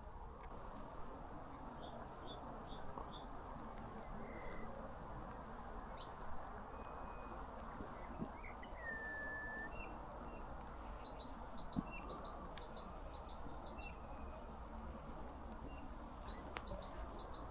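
Small songbirds chirping: quick runs of short high notes about 2 seconds in, again around 11 to 13 seconds and near the end, with a single held whistle near the middle, over a steady low hiss.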